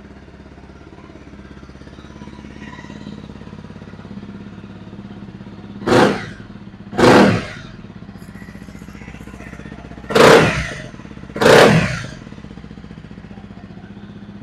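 2018 Honda CRF250L's single-cylinder engine idling through its Yoshimura aftermarket exhaust. The throttle is blipped four times in two pairs, about six and seven seconds in and again about ten and eleven and a half seconds in.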